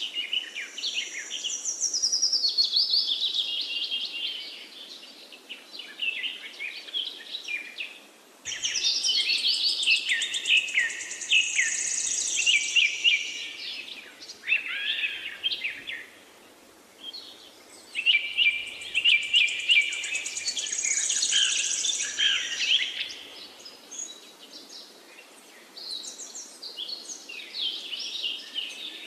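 Hot oil sizzling and crackling in a wok as vegetable fritter batter deep-fries. It flares up sharply about eight seconds in and again about eighteen seconds in, as fresh spoonfuls of batter go in, and dies down in between.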